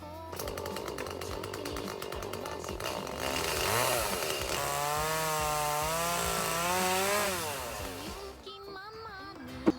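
Two-stroke chainsaw running under load, its engine pitch wavering as it cuts through wood, louder in the middle and dying away about eight seconds in.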